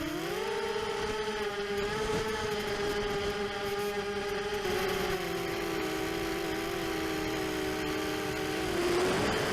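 ImmersionRC Vortex 250 Pro racing quadcopter in flight, its brushless motors and propellers giving a steady whine. The pitch dips sharply and climbs back right at the start as the throttle is cut and reapplied. A louder rush of air comes near the end.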